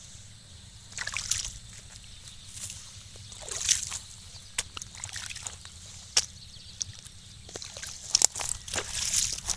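Irregular wet sloshing and swishing steps through the shallow water, mud and young rice plants of a flooded paddy, with a few sharp clicks between them. The loudest swishes come a little before the middle and again near the end.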